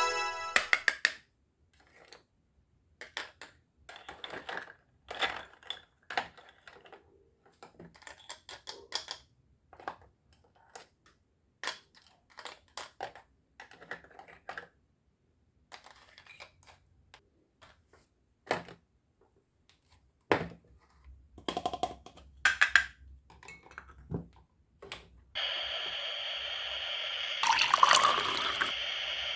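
Light, irregular clicks and taps of hard plastic toy food and toy tongs being handled. About 25 seconds in, a steady hiss with some splashing crackle sets in as liquid is poured from a small bottle into a toy frying pan.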